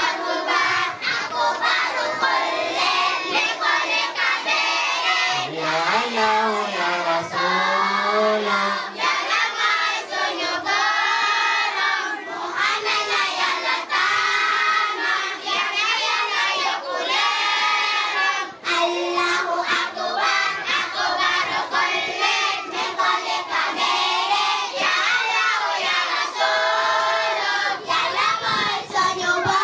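A group of children singing together in chorus, without a break.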